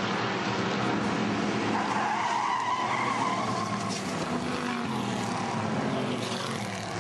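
Hobby stock race cars' engines running hard on a paved oval. Tyres squeal in a wavering tone for about two seconds, starting a couple of seconds in, as a car loses grip and spins in its own tyre smoke.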